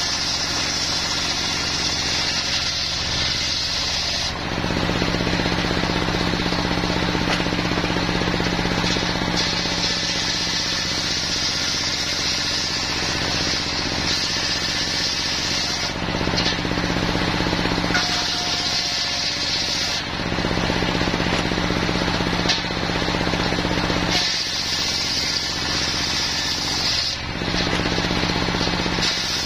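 A stationary single-cylinder diesel engine runs steadily, driving the circular saw blade of a small portable sawmill. The blade rips lengthwise through wadang timber in about five passes of two to seven seconds each, every cut adding a high rasping hiss over the engine, with shorter gaps between cuts where only the engine and the spinning blade are heard.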